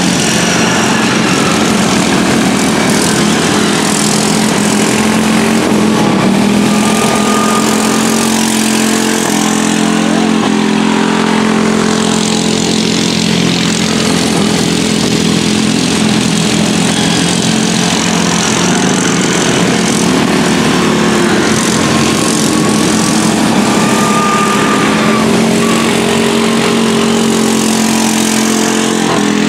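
Several modified racing lawn mowers running hard around the track, their small engines' overlapping notes rising and falling in pitch as they come past and draw away.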